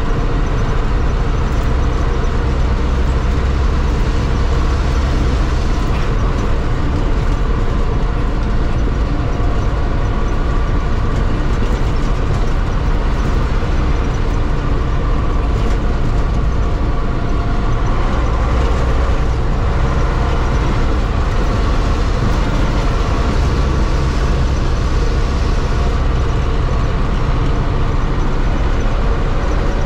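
Tatra 148 truck's air-cooled V8 diesel engine running steadily with a continuous low drone, its pitch shifting slightly about two-thirds of the way through.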